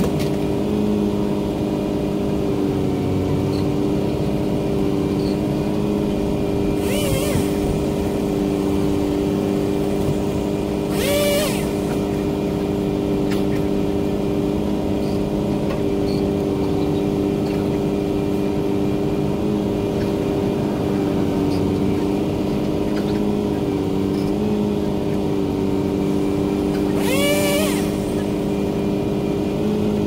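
Bucket truck engine running steadily, with a chainsaw revving briefly three times during tree cutting.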